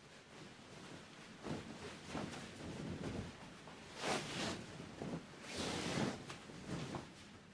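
Housework tidying sounds: irregular rustling and handling of objects with small knocks, and two louder rustles about four and six seconds in.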